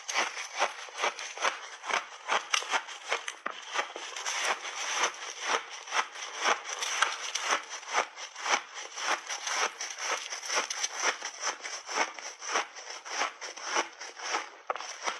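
Hard ice and refrozen mixed berries being chewed up close, a rapid, steady crunching at about three to four bites a second.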